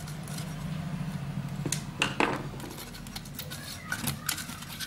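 Metal parts of a dismantled electric iron being handled and fitted together: a few sharp clicks and scrapes, the loudest about two seconds in and again near four seconds, over a steady low hum.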